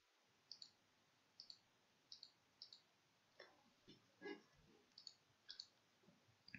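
Faint clicks from a computer mouse and keyboard being worked, coming in quick pairs about a second apart. About four seconds in there is a soft low sound, a little louder than the clicks.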